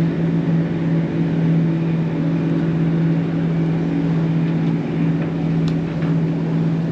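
Sailing catamaran's inboard engine running steadily at cruising revs, a constant low drone, over a wash of water and wind noise as the boat crosses speedboat wakes.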